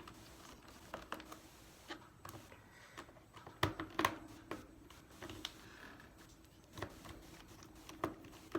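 Irregular light clicks and taps as hand tools and a Chromebook are handled on a work surface, the loudest a pair of sharper clicks around the middle.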